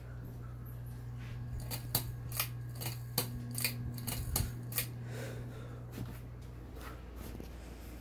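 Monte Carlo mini ceiling fan running with a steady low motor hum, which drops away about seven seconds in. A run of sharp, irregular clicks sounds in the middle, with a few more toward the end.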